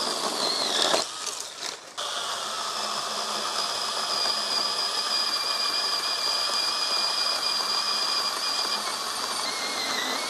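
Husqvarna Aspire 18-volt battery mini chainsaw on its telescopic pole attachment, running and sawing through a branch overhead, with a steady high electric whine over the chain noise. The pitch dips briefly near the end.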